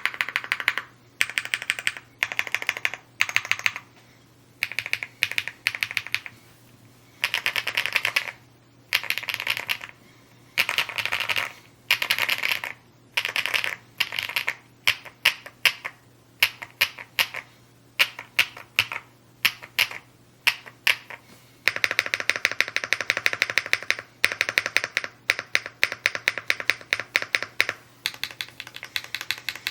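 Rainy75 aluminium-cased mechanical keyboard being typed on at speed: rapid keystroke clacks in bursts of a second or two with short pauses, and a longer unbroken run of typing in the second half.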